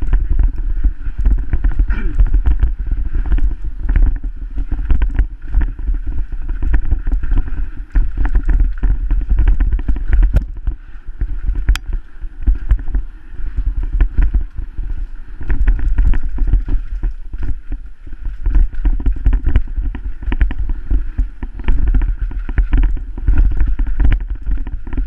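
Wind buffeting a helmet camera's microphone with a heavy rumble, over constant irregular rattles and knocks of a mountain bike riding fast down a rough dirt trail.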